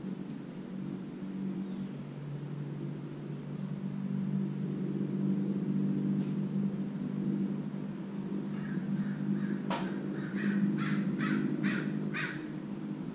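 A bird calling in a run of about eight short, harsh calls, about two a second, starting about two-thirds of the way in and getting louder. A sharp click comes partway through the calls, over a steady low hum.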